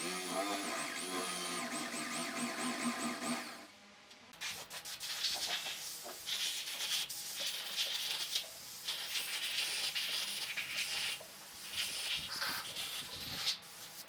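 A small electric power tool running with a high whine, which stops about three and a half seconds in; it is followed by irregular scratchy rubbing strokes on wood.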